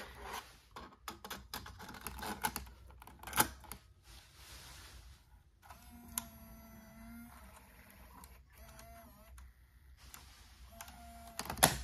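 Light plastic clicks and knocks of a Hi8 tape cassette and camcorder being handled, over the first few seconds. Then it goes quieter, with a few faint thin tones.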